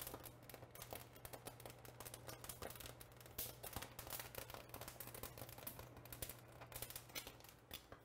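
Poblano chiles crackling with many small irregular pops as their skins char over a gas burner flame, the sign that the skin is blistering. A steady low hum runs underneath.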